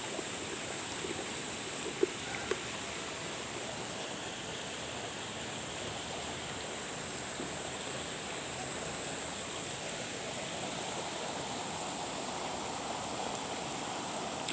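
Steady rushing of running water, with one sharp click about two seconds in.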